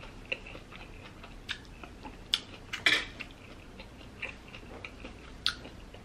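Close-miked chewing of a salad mouthful: soft wet mouth clicks with a few sharper clicks, the loudest about three seconds in.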